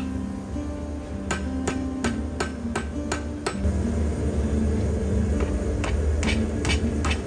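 Hand hammer striking red-hot steel on an anvil, in quick runs of blows about three a second, with a pause of a couple of seconds in the middle before the hammering resumes.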